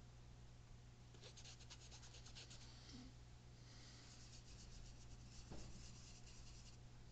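Faint, fast scratchy strokes of a paintbrush worked against a palette, in two spells: one short run about a second in, then a longer one from about halfway until near the end. A low steady hum runs underneath.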